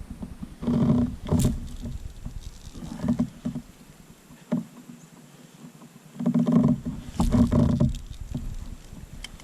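Hollow knocks and bumps on a plastic fishing kayak's hull, with the water moving against it. It comes as a few irregular bursts, the loudest two about two-thirds of the way through.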